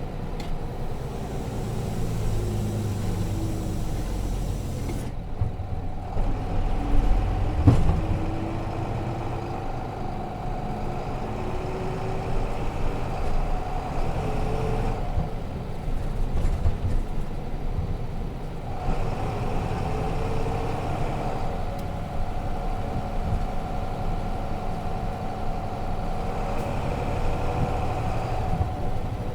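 Interior running sound of a Nissan Diesel RM bus with its FE6 six-cylinder diesel engine pulling on the road, the pitch rising slowly as it gathers speed. It eases off briefly about 5 s in and again for a few seconds in the middle. A single sharp click comes near 8 s.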